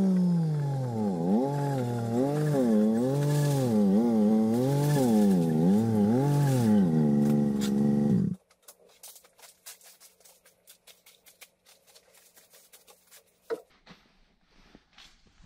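Small petrol engine running, its pitch dropping early on and then rising and falling in waves about once a second, until it is switched off abruptly about eight seconds in. Light clicks and handling noises follow, with one sharper click a few seconds later.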